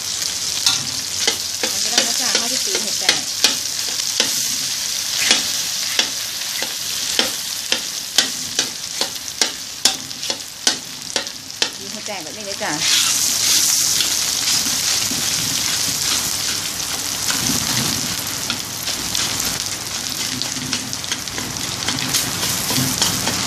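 Salted duck egg sizzling in hot oil in a steel wok while a metal spatula breaks it up and stirs it. The spatula clicks sharply against the wok about once or twice a second for roughly the first half; after that the sizzle grows steadier and denser, with softer scraping.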